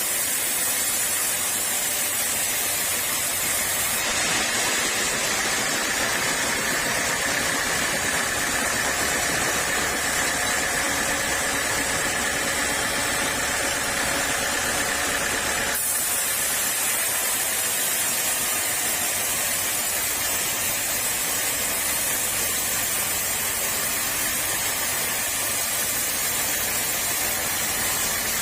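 Sawmill saw running as teak is sawn, a steady mechanical noise with a strong hiss. A steady whine joins in about four seconds in and stops abruptly around sixteen seconds.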